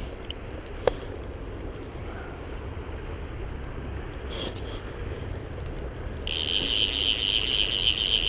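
Wind buffeting the microphone over the rushing river, with a sharp click about a second in. About six seconds in, a fly reel's click-pawl ratchet starts a loud, rapid buzz as line is reeled in.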